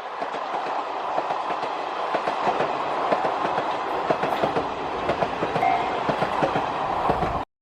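Train running along the track, its wheels clattering over the rails in a steady, dense rumble with many irregular clicks. It starts abruptly and cuts off suddenly near the end.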